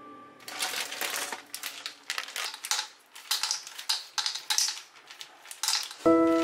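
Crinkling plastic bag of rock sugar being handled and tipped over a bowl, with irregular crackles and clicks as the hard sugar lumps shift and drop out.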